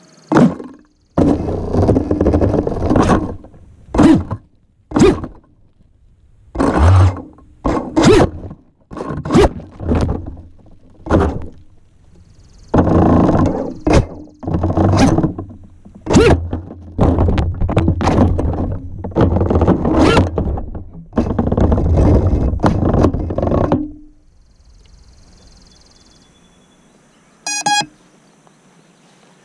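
FPV quadcopter stuck in a tree, its motors revved in repeated short bursts of throttle, the propellers thrashing against the branches. The bursts stop a few seconds before the end, and there is a short beep near the end.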